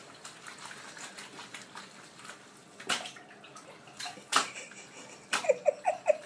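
Water running and splashing at a sink, with a few sharp knocks and a run of short, high squeaky sounds near the end.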